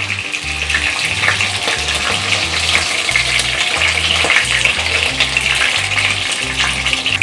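Chicken pieces sizzling and crackling in hot mustard oil in a kadhai as they are lifted out with a wire skimmer.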